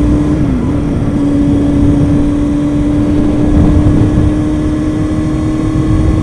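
Kawasaki ZX-6R 636 inline-four engine running at steady cruising revs, its note dipping briefly about half a second in and then holding and slowly rising. Heavy wind buffets the microphone throughout.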